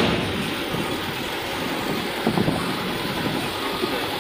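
Truck engines running with a steady mechanical din, with a couple of brief knocks a little after two seconds in.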